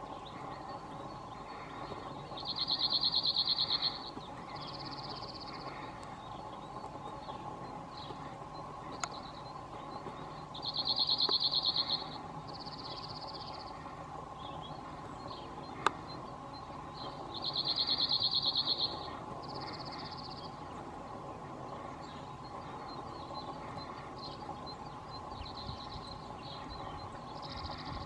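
Male cirl bunting singing: three fast, dry trills of rapidly repeated notes on one high pitch, each about a second and a half long, repeated roughly every seven to eight seconds.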